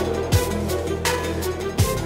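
Tense background score. Two deep bass hits, each dropping in pitch, land about a second and a half apart, with sharp percussion ticking between them.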